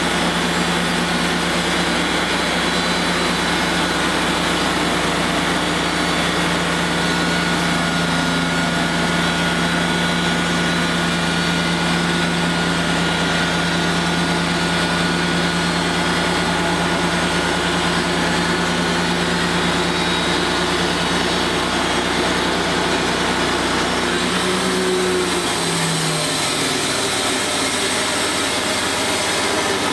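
Wood-Mizer LT35HD portable band sawmill running loud and steady as it saws a black walnut log. About 25 seconds in the tone changes: the deepest hum drops away and the pitch briefly slides down.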